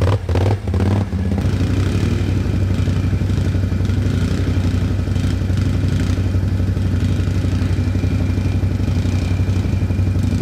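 Quad bike (ATV) engine running steadily at low revs: a constant low hum with a rapid, even firing pulse.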